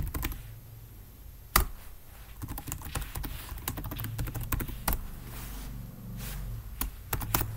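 Typing on a computer keyboard: irregular key clicks as a terminal command and a password are entered, with one sharper keystroke about one and a half seconds in.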